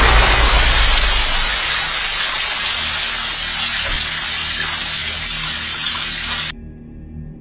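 Water gushing out of a shattered glass aquarium and splashing down, loudest at first and slowly easing off, then cutting off suddenly about six and a half seconds in.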